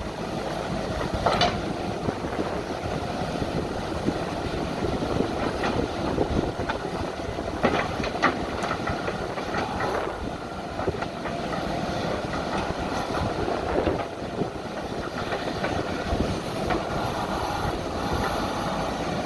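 Diesel engine of heavy earth-moving machinery running at work, with a few sharp clanks and knocks, the loudest about 1.5 and 8 seconds in.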